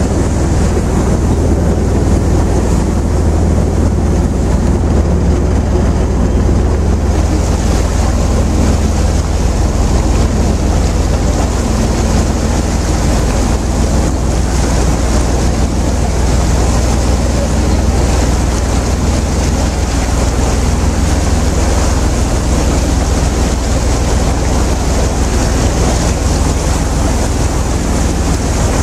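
Engine of a river excursion motor ship running steadily as a constant low rumble, with water washing along the hull. Wind on the microphone grows stronger about seven seconds in.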